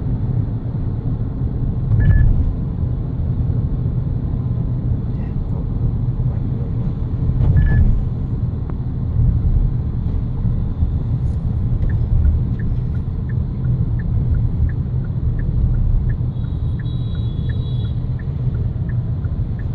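Car cabin road noise: a steady low rumble from the engine and tyres as the car drives along, with two louder bumps about two and eight seconds in. In the second half there is a light, regular ticking about twice a second, and near the end a high-pitched tone lasts about two seconds.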